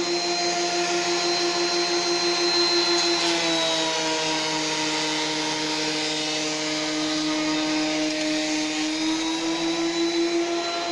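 DeWalt benchtop thickness planer running steadily while planing tulipwood strips down to thickness, a loud motor-and-cutterhead hum over a hiss of cutting. Its pitch sags a little from about three and a half seconds in and recovers near nine seconds as the strips pass under the cutters.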